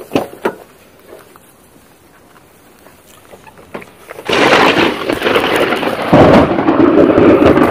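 Thunder from a very close lightning strike: a sudden loud crack about four seconds in, then a heavy rumble that swells again about two seconds later and carries on, loud enough to overload the phone's microphone.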